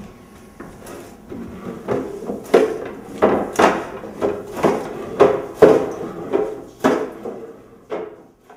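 A mop being worked across a hard floor: a run of knocks and scrapes about twice a second, louder in the middle and fading away near the end.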